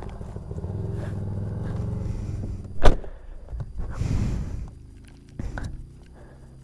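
Kia car's engine running, heard from inside the cabin. A sharp click comes just before the three-second mark and a rustle follows about a second later. The engine hum is quieter in the second half.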